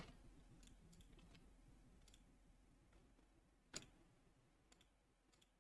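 Near silence broken by a few faint computer mouse clicks, with one louder click a little past the middle.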